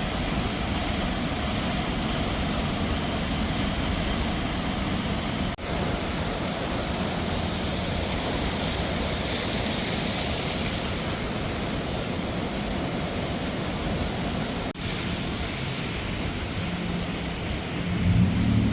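Swollen, flooded river rushing past in a steady wash of water noise, with two brief breaks where the sound cuts out for an instant.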